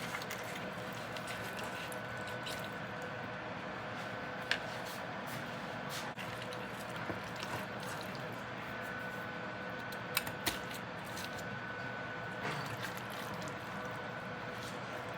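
Baked ziti being served onto a plate: soft scooping with a few light clicks of a utensil against the dish, about 4.5 s in and twice near 10 s, over a steady background hum.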